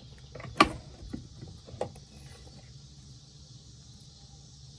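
One sharp, loud knock about half a second in, then two lighter knocks, as hard objects are handled on a workbench; after that only a faint steady hiss.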